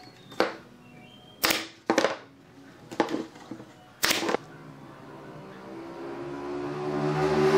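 Pneumatic brad nailer firing brads into the corners of a pine frame: five sharp shots at uneven intervals. Background music then fades in and swells to the loudest point near the end.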